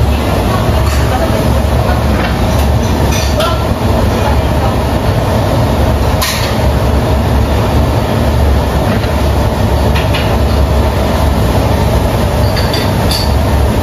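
Steady loud roar of a restaurant kitchen's lit gas wok burners, with a few sharp clinks of metal cookware and utensils.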